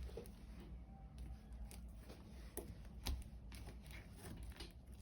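Homemade slime with sprinkles being stirred and worked by hand: faint, irregular sticky clicks and small crackles.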